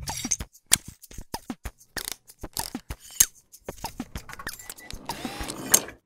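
Sound effects for an animated intro: an irregular run of sharp mechanical clicks and clacks, like ratchets and gears, several with a short falling ring, swelling near the end before cutting off.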